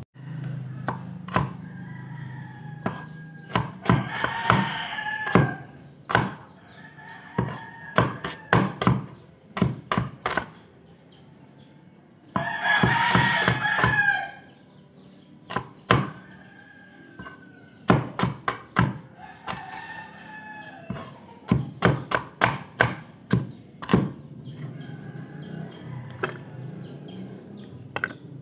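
Cleaver chopping on a wooden board in uneven, irregular strokes, while a rooster crows several times in the background, loudest about halfway through.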